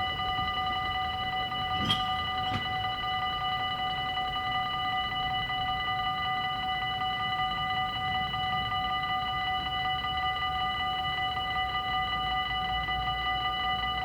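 Dutch level-crossing warning bells ringing steadily with a sustained metallic tone, the sign that the crossing is active for a train. Two short clicks come about two seconds in.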